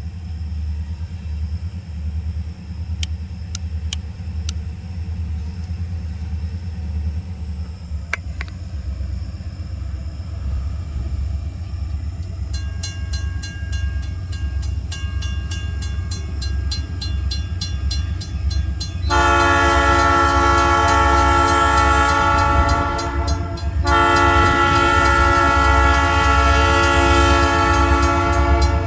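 EMD SD40-2 diesel locomotives approaching with a steady low engine rumble. Quick, evenly spaced ringing strikes begin about twelve seconds in. The locomotive air horn then blows two long, loud blasts and starts a third at the very end.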